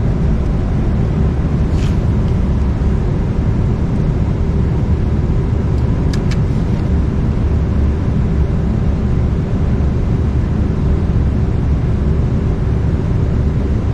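A steady, loud low machine drone with a faint steady hum, and two faint clicks about two and six seconds in.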